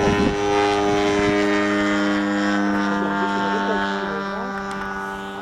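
A small aircraft engine droning at a steady pitch, slowly fading.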